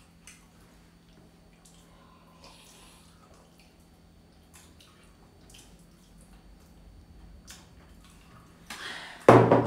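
Faint table sounds of a meal: sips from a glass mug and hand-eating smacks, with scattered small clicks. About nine seconds in, a short loud burst.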